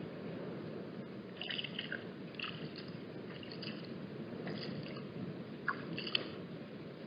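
Wind buffeting the microphone in a steady low rumble, with a few short, scattered high ticks or chirps over it.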